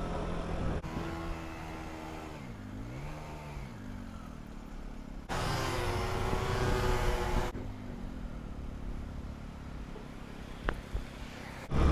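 Delivery scooter engine running while riding in traffic, its pitch dropping and rising again as it slows and speeds up, with a louder rushing stretch of about two seconds in the middle.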